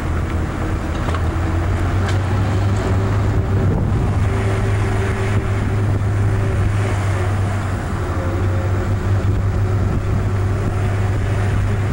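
Steady low drone of a car driving slowly, engine and road noise heard from inside the car.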